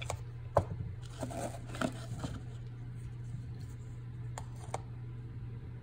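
Light clicks and taps of metal valve spring retainers being lifted off and set down on a steel-topped digital pocket scale: two sharp clicks at the start, a brief rustle about a second in, then two more taps a little past the middle as the titanium retainer goes on. A steady low hum runs underneath.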